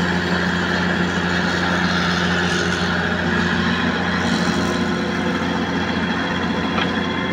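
Hitachi Zaxis 210 excavator's diesel engine running with a steady hum while it digs and swings a loaded bucket of black soil over a dump truck.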